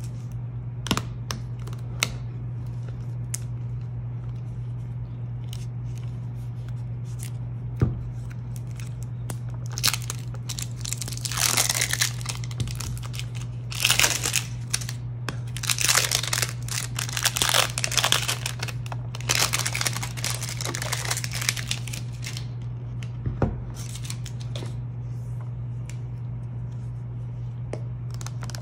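Clear plastic shrink wrap being torn and peeled off a plastic slime tub, crinkling in dense bursts through the middle of the stretch, with a few sharp clicks of handling before it. A steady low hum sits underneath.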